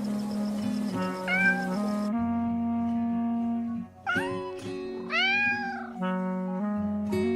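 Kitten meowing three times over background music: a short meow about a second in, a brief one near four seconds, and a longer, rising-and-falling meow just after.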